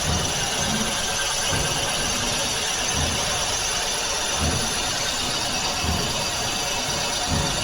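Metalworking machine tool running steadily in a workshop, with a constant high whine and dull low knocks repeating about every second and a half.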